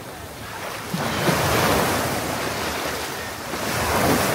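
Ocean surf washing in close by, swelling up about a second in and again near the end, with wind buffeting the microphone.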